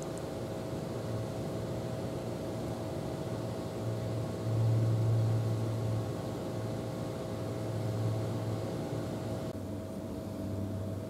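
Steady low mechanical hum, like an engine or machine running, with a few faint steady tones over it. It swells for a second or two about four and a half seconds in.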